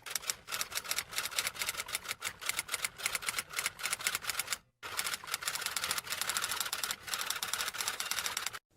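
Sound effect of rapid, irregular key clicks, like fast typing, with a short break about halfway through.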